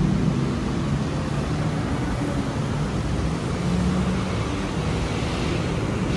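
Steady rumble and hiss of city road traffic.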